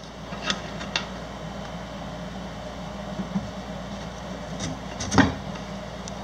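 Steady hum of a Frigidaire 6000 BTU air conditioner running, with a few light clicks and a louder knock about five seconds in.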